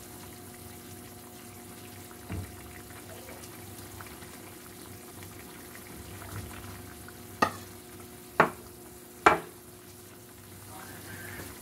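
Chicken tinola broth simmering and bubbling in a nonstick pan as it is stirred with a plastic spoon. A soft knock early, then three sharp knocks of the spoon against the pan about a second apart, the loudest sounds.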